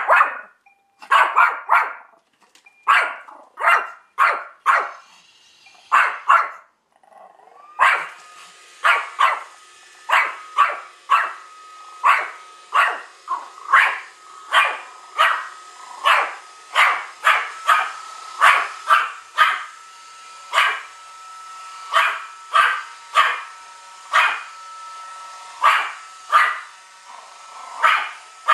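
Pomeranian barking over and over at a Roomba 630 robot vacuum, short sharp barks at first spaced out, then coming about one to two a second. From about eight seconds in, the robot vacuum's steady whirring hum with a thin whine runs under the barks.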